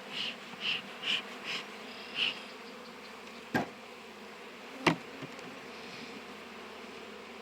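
Honeybees buzzing around an opened hive, a steady hum. In the first two seconds come five short scraping sounds as the cappings are peeled off drone brood comb. Two sharp knocks follow, about three and a half and five seconds in.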